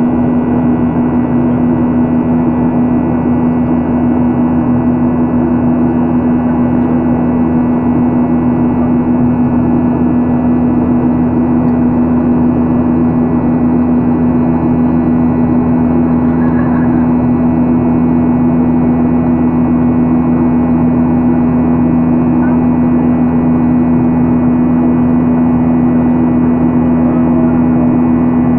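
Boeing 737-800 cabin noise in flight: the CFM56-7B turbofan engines and airflow making a loud, steady drone with a strong low hum.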